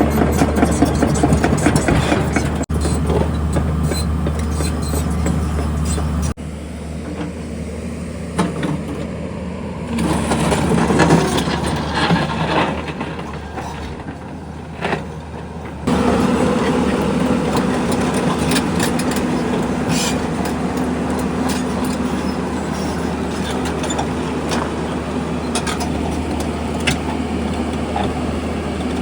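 An engine running steadily under a hiss of spraying water, with a few abrupt jumps in level where the sound changes.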